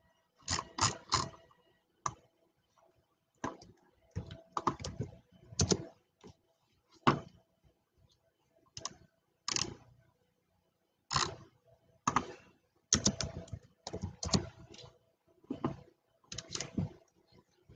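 Typing on a computer keyboard in short, irregular bursts of keystrokes, with mouse clicks between them.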